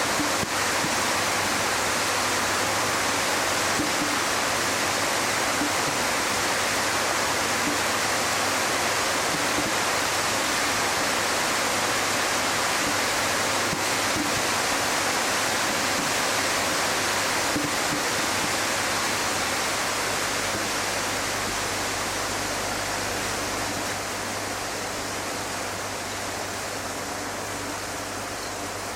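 Steady, even rushing noise like a waterfall or static, easing off slightly after about twenty seconds.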